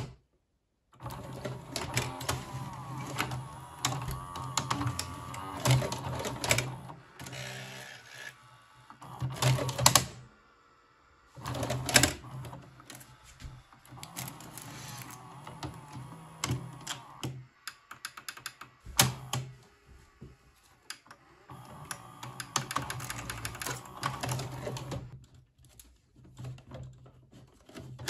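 Sony SLV-X312 VHS video recorder's tape-transport mechanism running with its cover off: a steady motor hum with gears, levers and loading arms clicking and clattering as a VHS cassette is drawn in, threaded and later ejected. The hum drops out briefly a few times between stages of the mechanism's cycle.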